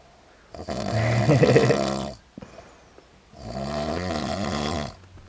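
A drunk man snoring in his sleep while hiccuping: two long snores, the first louder and rougher, with a short sharp hiccup between them.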